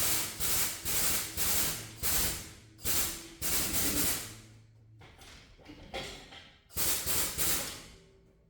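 Hand ratchet wrench being cranked in quick back-and-forth strokes on a transmission-mount bolt, the pawl clicking through each stroke at about two strokes a second. The strokes stop after about four seconds and one more short run comes near the end.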